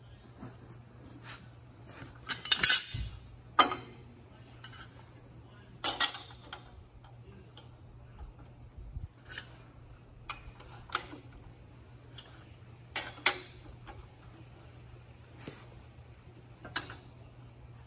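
Hand tools clinking and clanking against the steel of a Budd RDC truck's journal box and pedestal: about ten sharp, irregular metal hits a second or more apart, the loudest few near the start, over a steady low hum.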